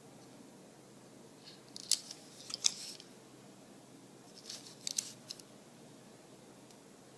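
Sharp little clicks and scrapes of a die-cast toy car being handled and turned over in the fingers close to the microphone, in two short clusters, about two seconds in and again about five seconds in.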